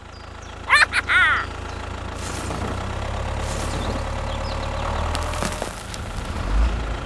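Steady low engine rumble, like a tractor engine running, with two short high-pitched squeaky calls about a second in.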